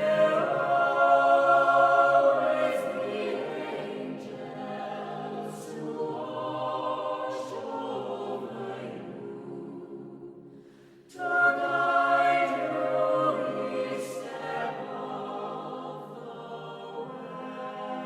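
Choral music: sustained, wordless-sounding voices holding chords, swelling in at the start, fading away near ten seconds and swelling back in about eleven seconds in.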